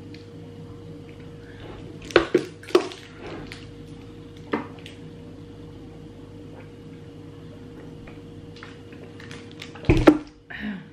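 Eating and table-handling sounds over a steady low hum: a few sharp clicks and crackles about two seconds in, then near the end a loud knock and crackle as a large plastic water bottle is set down on the table.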